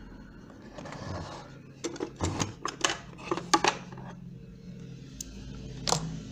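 A quick run of small, sharp metallic clicks and taps, about a dozen in two seconds, then two more single clicks near the end: small metal parts being handled while the build deck of a Geekvape Zeus X rebuildable tank atomizer is worked on.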